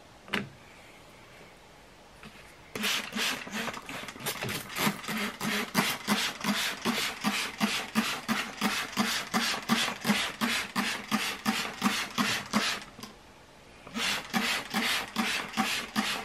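Hand trigger spray bottle squeezed rapidly and repeatedly, about three to four sprays a second, each a short hiss with a click of the trigger, misting the inside of a reptile tank. There is one brief pause about three seconds before the end.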